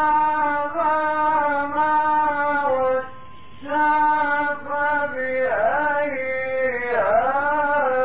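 A man reciting the Quran in the melodic mujawwad style: long, drawn-out notes sung on one breath, with wavering ornaments near the end. There is a short pause for breath about three seconds in.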